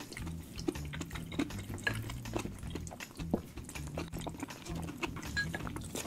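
Sticky ambuyat (sago starch paste) being stirred and twirled in a bowl with wooden utensils, making many short wet clicks and smacks, with close-up mouth sounds of chewing.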